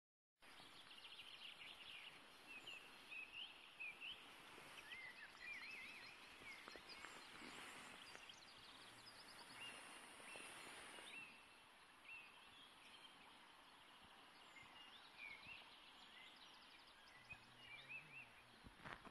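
Faint songbirds of the dawn chorus, many short chirps and trills, over a steady hiss of flowing river water.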